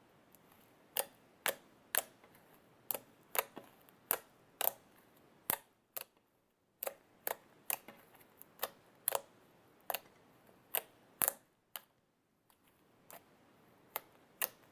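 Slime being kneaded and mixed by hand, giving a run of sharp, irregular clicks and pops from air pockets squeezed out of it, with two short pauses.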